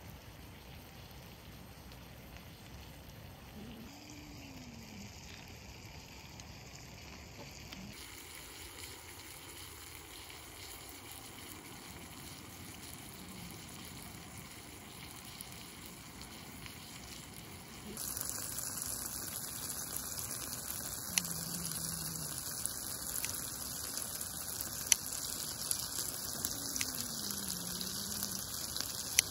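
Rain pattering steadily. It grows suddenly louder and brighter about two-thirds of the way in, with a few sharp drip-like ticks.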